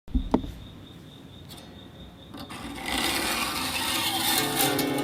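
Chroma harp giving a glassy ringing sound. A couple of knocks come at the very start, the ringing builds up about halfway through, and steady held tones settle in near the end.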